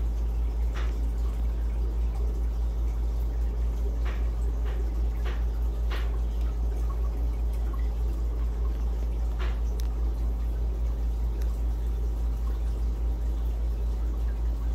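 Steady low hum throughout, with a few short water drips or plinks scattered through it, most of them in the first six seconds and one near ten seconds in.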